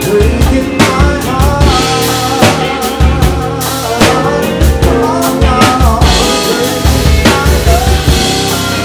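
Drum kit played with sticks, keeping a steady beat of kick drum and snare hits with cymbal wash, under a band's bass and a melodic line.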